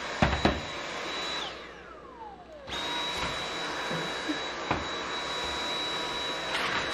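Dyson cordless stick vacuum running with a steady high whine. About a second and a half in, the motor stops and winds down, its whine falling in pitch. It starts again abruptly just before the three-second mark and runs on steadily, with a few light knocks along the way.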